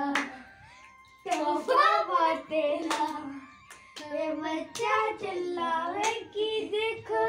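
Children singing, with long held, wavering notes and a short quiet break about a second in, and a few hand claps.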